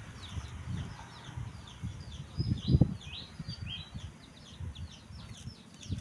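Newly hatched chicks peeping: many short, high, downward-sliding chirps overlapping, busiest around the middle. Soft low thumps come with them, one louder about three seconds in.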